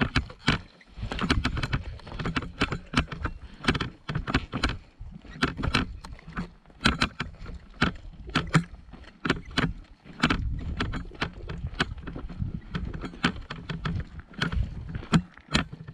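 A player moving on foot in gear: irregular crunching steps and clicks and rattles of equipment, several a second, over a dull low rumble of wind or handling on a body-worn microphone.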